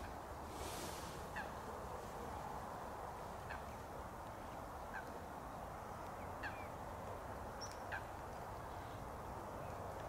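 European robin giving short, sharp calls, about six in all, one every second or so, over a steady background hiss.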